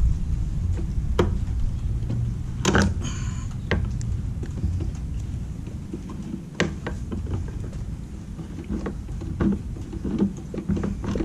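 Scattered clicks, taps and a short scrape of pliers and a screwdriver working a broken screw out of the plastic housing of a Polaris 280 pool cleaner, over a steady low rumble of wind on the microphone.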